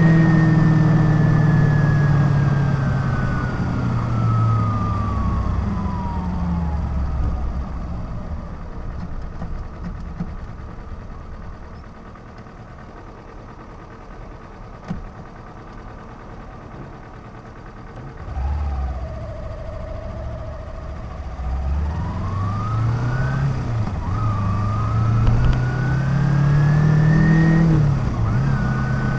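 Kawasaki Ninja 250 motorcycle engine winding down as the bike slows to a stop, then idling quietly for about ten seconds. It then revs up to pull away, the pitch rising, dipping briefly at a gear change, and rising again.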